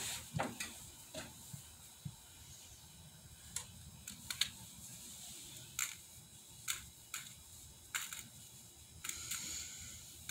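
Scattered light clicks and taps, about a dozen, irregularly spaced, from hands handling fabric and small sewing items at a worktable.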